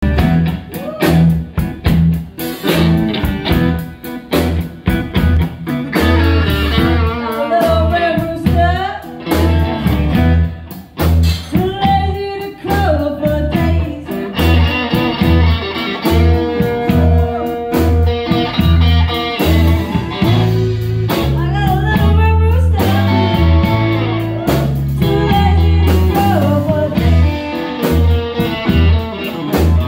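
Live blues band playing a slow blues on electric lead guitar, cigar box guitar, bass guitar and drums: a steady drum-and-bass beat with wavering lead lines on top.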